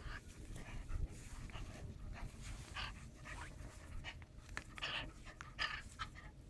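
A 49-day-old German shepherd puppy panting hard in short, uneven breaths as it bites and tugs at a bite sleeve. A low thump of handling noise comes about a second in.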